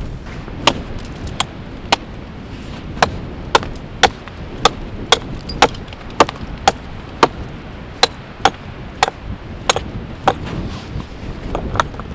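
A run of sharp chopping knocks, about two a second and fairly regular, over a steady low rushing background.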